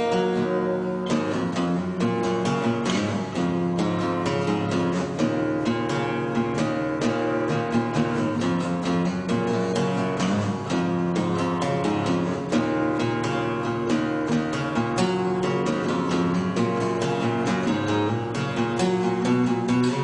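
Background music: acoustic guitar playing with steady plucked and strummed notes.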